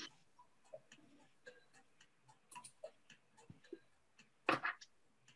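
Faint, irregular clicks and ticks, with a louder cluster about four and a half seconds in.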